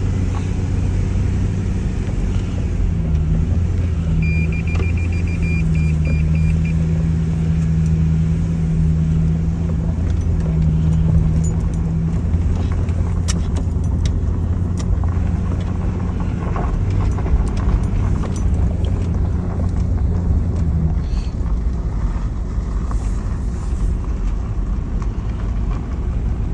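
Vehicle engine running with a steady low hum, and a quick run of electronic chime beeps about four to seven seconds in. The engine hum stops about 21 seconds in, followed by a few sharp clicks.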